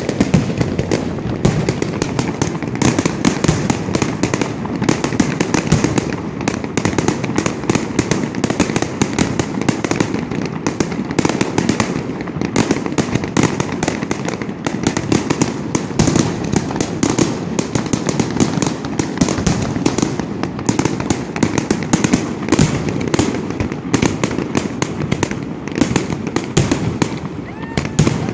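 Fireworks display going off in a continuous rapid barrage: overlapping booms and crackling bursts, many a second, without a pause.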